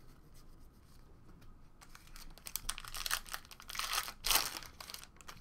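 Trading cards and a foil pack wrapper being handled: quiet shuffling at first, then a run of crinkles and rustles in the second half, loudest about four seconds in.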